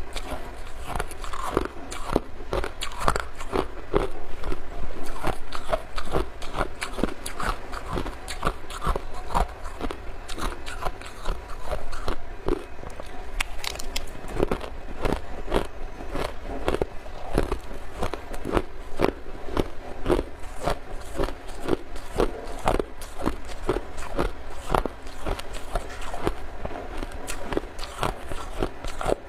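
Ice being bitten and chewed close to the microphone: dense, irregular crunching and cracking that goes on without pause.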